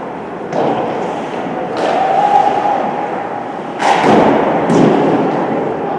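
Several sharp thuds and knocks from game play echoing in a large indoor hall, the loudest about four seconds in, over a steady background din.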